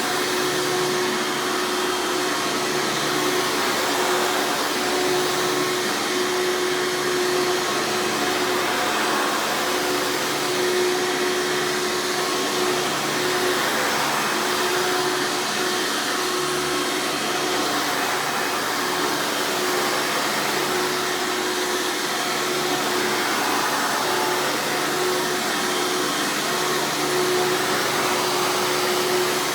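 Hoover Encore Supreme U5059-930 upright vacuum running steadily: a loud, even motor and airflow noise with a steady hum underneath, the motor sounding healthy.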